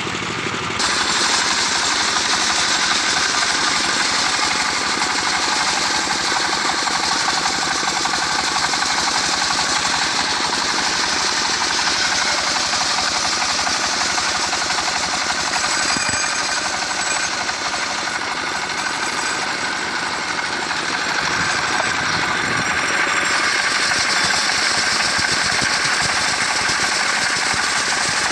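Engine-driven saw cutting a mango log into boards, running steadily and loudly. A brighter, higher hiss comes in about a second in.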